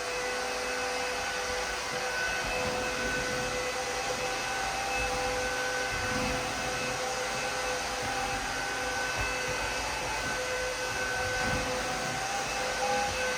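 Aspiron CA-022 cordless wet-dry vacuum running steadily: a constant motor whine over a rushing airflow hiss.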